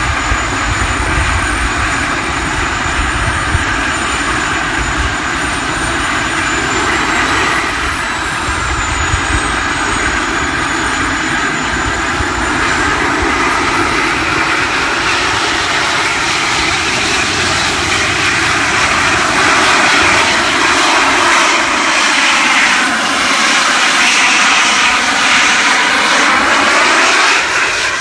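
Small jet turbine engines of a jet-powered hoverboard running at a loud, steady roar with a thin high whine. In the last few seconds the sound sweeps and shifts as the board lifts off and climbs away.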